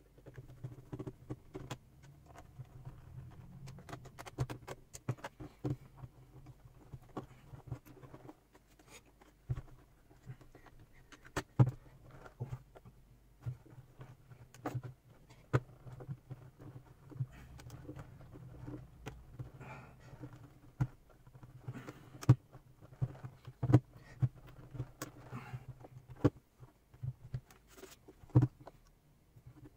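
Irregular plastic clicks, taps and knocks from a Hantek 2D72 handheld oscilloscope's case being handled and fitted back together, with a few sharper knocks as it is set down and turned over. A faint low hum runs underneath.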